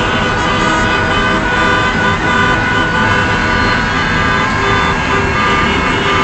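Many car horns honking at once in celebration, long overlapping held tones of different pitches that start and stop over a steady din of traffic.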